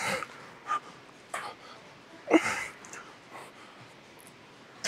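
A man breathing hard in short, forceful exhales from the strain of a heavy set of barbell bicep curls, the loudest a grunt about two and a half seconds in.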